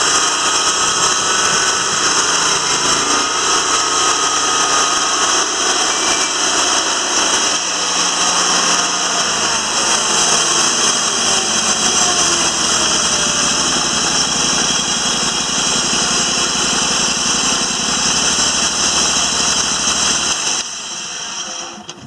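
Timberking 2000 band sawmill running steadily under its engine, with a faint whine that slides in pitch now and then as the hydraulic levers are worked. The sound drops a step near the end and then dies away.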